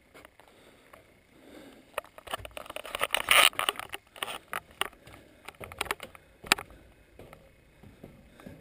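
Footsteps climbing metal stairs: irregular clanks and knocks of shoes on the steps, with a dense, loud run of them about two to four seconds in and a sharp knock about six and a half seconds in.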